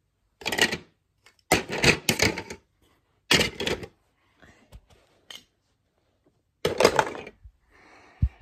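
Handfuls of plastic Lego bricks dropped into a container, clattering in four separate bursts of about half a second to a second each.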